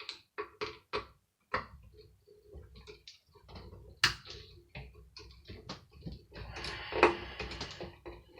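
Tools and metal parts clicking and knocking as the motor of a hand air dryer is worked apart by hand, with a sharp strike about four seconds in and a louder clatter about seven seconds in.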